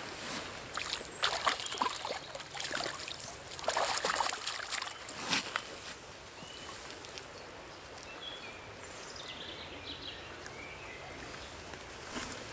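A hooked brown trout splashing and thrashing at the surface of the river as it is drawn in to the bank, in a flurry of irregular splashes over the first five seconds or so. After that the steady flow of the river carries on.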